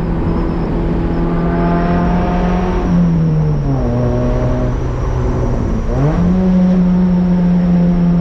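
Honda Accord wagon's F22B1 four-cylinder engine running at steady high revs, its pitch falling about three seconds in as the revs drop, then rising sharply about six seconds in and holding steady again.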